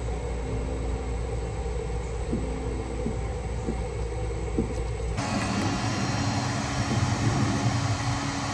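Handheld electric heat gun running steadily, its fan and element blowing hot air onto a vinyl decal to soften the adhesive for scraping. About five seconds in the sound changes abruptly to a louder, harsher blowing.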